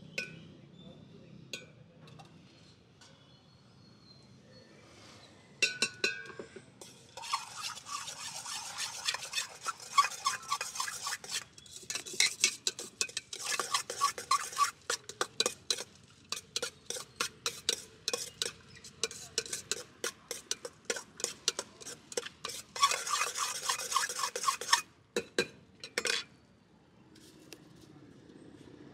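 Metal spoon stirring and scraping puffed rice with chutney in a stainless steel bowl, quick clinking strokes against the bowl. The mixing starts about six seconds in and stops a few seconds before the end.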